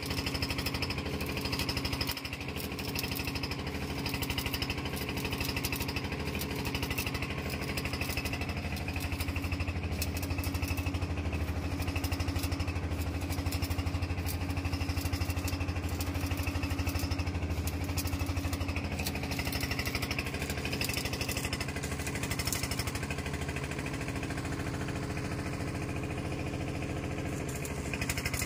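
Engine running steadily at idle with a fast, even pulse.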